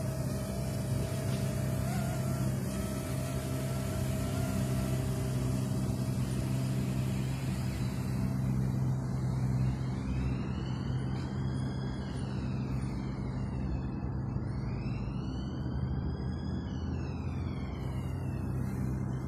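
Background synth music: steady low sustained tones, joined about halfway through by high tones that sweep up and back down several times.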